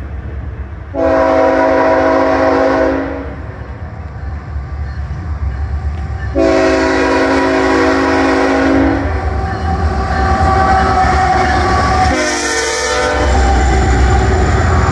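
Canadian Pacific ES44AC diesel locomotive's multi-chime air horn sounding two long blasts and then a short one as the train approaches. Near the end the locomotives' engines and wheels rumble past close by.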